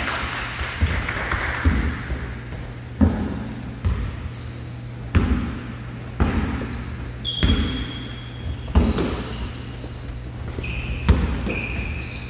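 A basketball bouncing on a hardwood gym floor, single thuds about once a second that echo in the large hall, with short high-pitched squeaks of sneakers on the court from about four seconds in, over a steady low hum.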